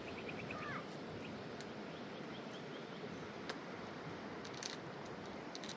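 Quiet outdoor ambience: a steady hiss with two short trills of quick faint chirps, one at the start and one near the middle, and a few small scattered clicks.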